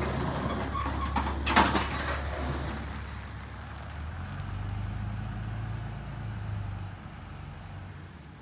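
Pickup truck towing a loaded dump trailer pulling away, its engine running with a steady low hum that slowly fades. A loud clatter comes about a second and a half in, and the engine note changes about four seconds in.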